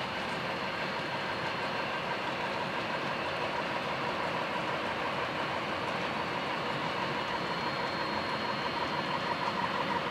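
HO scale model coal hopper cars rolling along metal track, a steady rolling hum of small metal wheels with a fast, faint clicking, growing a little louder near the end as the train passes close.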